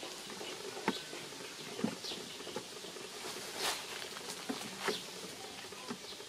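Scattered rustling and crackling of dry leaf litter, irregular little clicks over a faint steady outdoor hiss, with a couple of brief high chirps.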